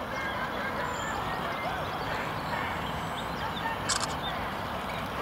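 Many short bird calls, waterfowl among them, over a steady low background noise, with one sharp click about four seconds in.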